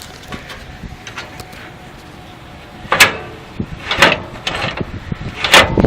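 Three short, sharp clunks, about 3, 4 and 5½ seconds in, from the old riding mower being handled after a quiet stretch, with no engine running.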